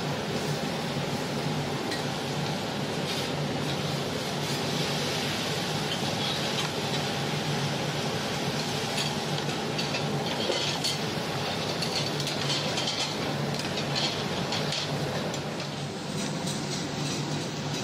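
Steady kitchen din: a low hum with a hiss over it, with metal utensils clinking against cast-iron sizzle plates now and then.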